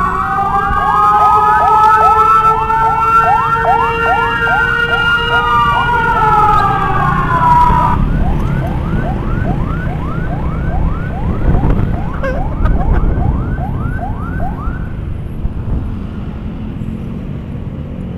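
Electronic emergency sirens from an ambulance escort. A fast yelp overlaps a slower wail, and the wail drops out about halfway through. The fast yelp, about two to three rising sweeps a second, cuts off near the end, leaving motorcycle engine and road noise.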